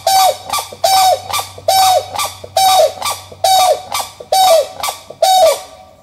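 A fowl calling in a steady series, about seven harsh calls, each with a short note that drops in pitch, a little more than one a second. The calling stops near the end.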